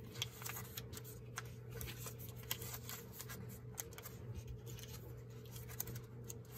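Crumpled flexible plastic packaging circles crackling and rustling faintly in irregular small clicks as hands stack and press them together, over a low steady hum.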